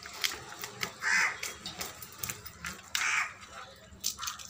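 Hands rubbing and scraping a raw fish on a steel plate to clean off scales and slime, with scattered wet clicks. Two harsh crow caws, about a second and about three seconds in, are the loudest sounds.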